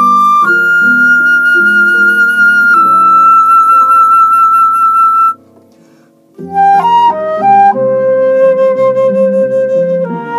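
Concert flute playing a slow pasillo melody in long held notes over a lower accompaniment. About halfway through it breaks off for about a second, then comes back with a quick run of notes into another long held note.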